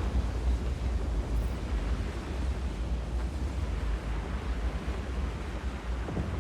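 Strong wind buffeting the microphone: a steady, gusting low rumble with a hiss above it.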